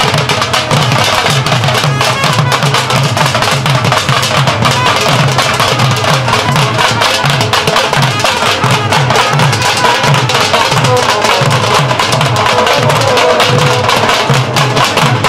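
Several Punjabi dhol drums played together in a steady, driving rhythm, deep bass strokes under a dense patter of sharp stick hits.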